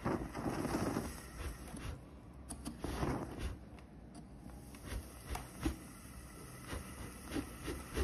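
Red-hot iron rod burning a hole through a workpiece: a faint hiss with scattered crackles and clicks.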